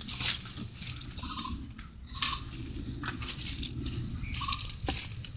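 Footsteps and rustling through tall grass, with handling noise from a handheld camera: an irregular run of scuffs and crunches over a low rumble.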